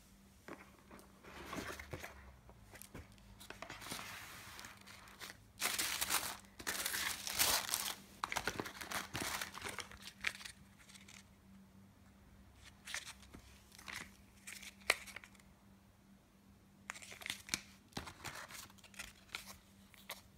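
Tissue paper and plastic cosmetic sachets rustling and crinkling as a beauty box is unpacked by hand. The sound comes in irregular bursts, loudest and busiest about a third of the way in, with shorter crinkles later.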